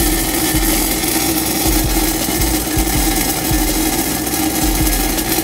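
Stick-welding arc of a 1/8-inch E6010 rod burning steadily during a root pass on pipe, a continuous harsh crackle and sizzle, with a steady hum running underneath.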